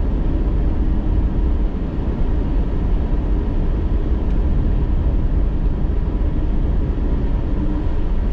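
Steady in-cab road noise of a vehicle driving on a highway: a low rumble of tyres and engine, with the air conditioner blowing.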